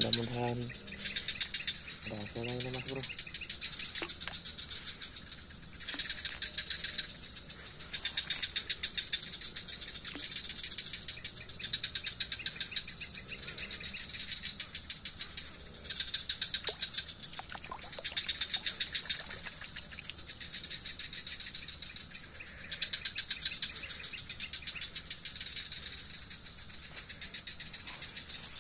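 Night insects calling: a steady high buzz with rapid pulsed chirping trains that come in bouts of about a second, roughly every two seconds.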